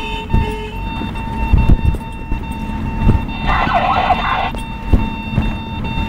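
Inside a moving vehicle on the way to an emergency call: low road and engine rumble with several jolts, under a steady high tone that holds unchanged. About three and a half seconds in, a one-second noisy burst cuts across it.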